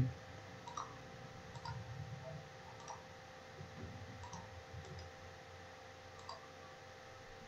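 Faint, scattered clicks from a computer mouse and keyboard, heard over a faint steady electrical hum.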